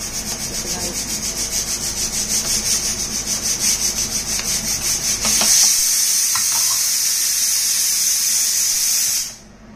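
A steel spoon stirring coffee in a ceramic mug, scraping round about three to four times a second over a high hiss. About five seconds in, the hiss turns steady and louder, then cuts off suddenly near the end.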